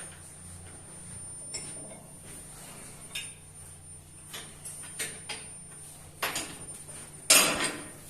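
Scattered metal clanks and scrapes from work on a ship's ballast pipe, with one louder, longer scrape near the end, over a steady low hum of ship machinery.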